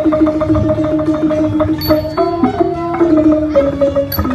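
Thai string ensemble (wong khrueang sai) playing live: khlui bamboo flute and saw fiddles carry a sustained, sliding melody over quick struck and plucked string notes. Light, high metallic strikes ring out about every two seconds.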